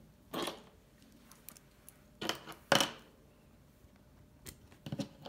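Small screws and a screwdriver clicking and rattling against a laptop's plastic bottom case as the case screws are put back in: a handful of short clicks, the loudest near the middle.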